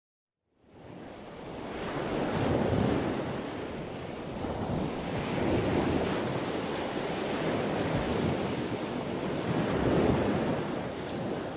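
Steady rushing, churning water noise that fades in about half a second in and then swells and eases every few seconds.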